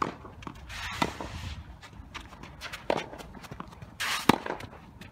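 Tennis rally: racket strikes on the ball at the serve and every second or two after, the loudest just after four seconds, with shoes scuffing on a sand-filled artificial grass court between shots.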